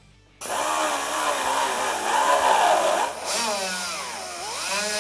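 Pneumatic pencil die grinder starting up about half a second in and running with a hissing whine whose pitch wavers up and down as the burr is pressed into the edge of a bolt hole in the Jeep Wrangler's sheet-metal body to enlarge it. It eases off briefly about three seconds in, then picks up again.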